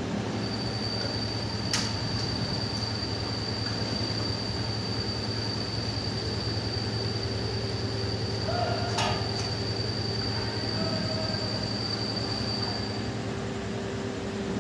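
Two dogs eating and lapping milk-soaked flatbread from metal bowls, the bowls clinking sharply about 2 s in and again about 9 s in, the second with a brief metallic ring. Under it runs a steady low hum and a thin, steady high-pitched whine that stops near the end.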